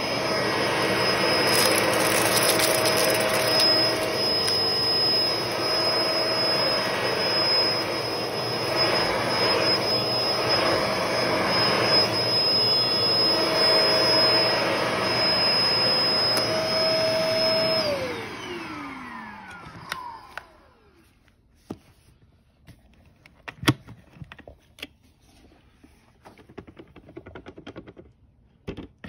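Cordless stick vacuum running on carpet, picking up dry cat food, with a steady motor whine. About 18 seconds in it is switched off and the motor winds down, its pitch falling over a few seconds, then there are a few scattered clicks and knocks.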